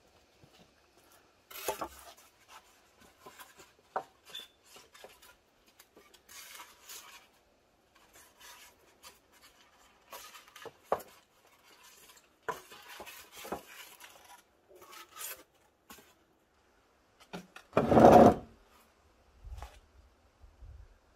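Handling of a scoped rifle and shooting gear on a wooden bench: scattered clicks, knocks and rubbing, with one short, louder noise near the end.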